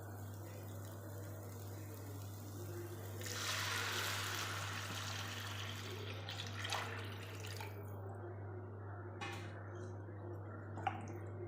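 Water being poured into a pan of rice sautéed in ghee, rising to a louder rushing, splashing pour from about three seconds in to about six seconds. A few light clicks follow near the end, over a steady low hum.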